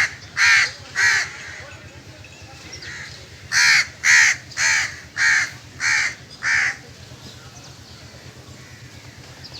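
A crow cawing in two bouts of harsh, evenly spaced caws: a few near the start, then a run of six about three and a half seconds in.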